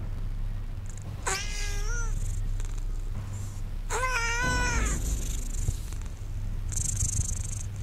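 A cat meowing twice, two drawn-out calls about three seconds apart, over a steady low hum.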